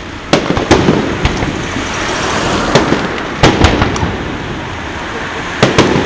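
Aerial fireworks shells bursting: about seven sharp bangs, several coming in quick pairs, each followed by a short echo.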